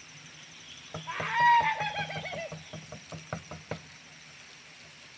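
Hunting dog giving a drawn-out, falling yelp about a second in, with scattered sharp knocks over the next few seconds.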